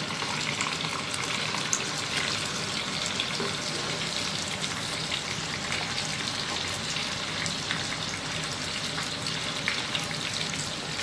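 Breaded tofu cubes deep-frying in hot oil in a pot: a steady sizzle with scattered small pops and crackles.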